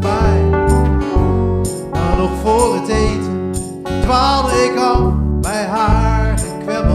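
A small band playing a song live: a strummed acoustic guitar with electric bass and keyboard, and a man singing.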